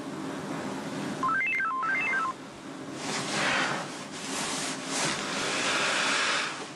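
Cell phone text-message alert: a quick run of electronic beeps stepping up in pitch and back down, played twice about a second in, over soft background music that swells afterwards.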